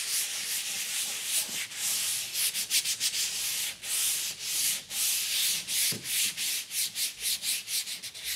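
Sandpaper rubbed by hand over painted GIB plasterboard in rapid back-and-forth strokes, a repeated scratchy hiss: the paint being lightly scuffed to key it for the stopping compound.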